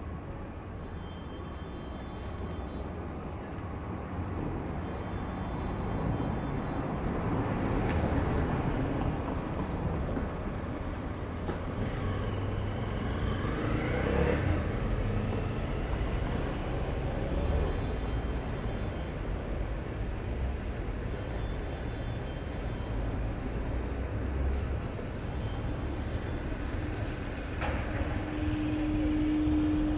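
Town-centre street traffic: a steady rumble of cars and engines, with a motorcycle passing about halfway through, its engine pitch rising and falling. A steady low hum sets in near the end.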